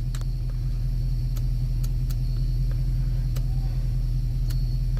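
Audi S5's 4.2-litre V8 idling steadily with a low rumble, with about six light clicks scattered through it.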